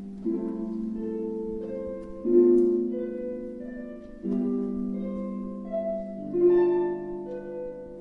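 Two concert harps playing a duet: plucked notes that ring on, with strong chords struck about every two seconds.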